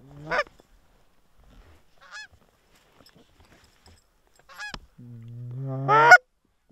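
Canada goose honks: a few short scattered calls, then a long low drawn-out note that breaks upward into loud honks near the end.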